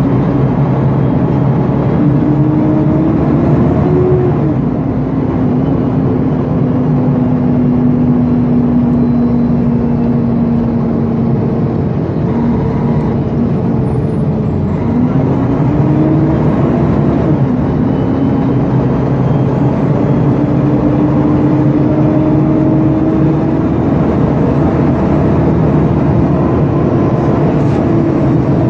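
Diesel engine of a Mercedes-Benz O-500UA articulated city bus running under way: its pitch rises as it pulls, drops at a gear change about four seconds in, holds steady, then climbs and shifts again about halfway through before settling into a steady, higher drone.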